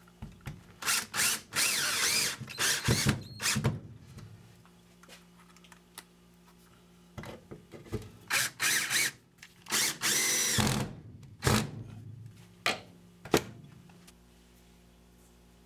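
Cordless drill running in a series of start-stop bursts, two of them longer runs with a whine that rises and falls, as it drives a screw-in hook into the wall. Sharp knocks and clicks come between the bursts, and the sound stops about a second and a half before the end.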